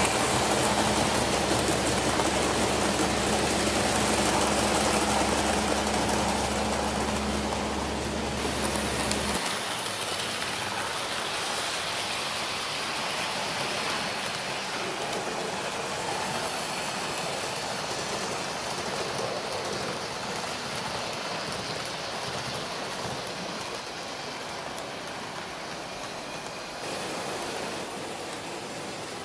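A train running on its rails. There is a steady low hum for the first nine seconds or so, which stops abruptly, and the hissing rolling noise slowly fades after that.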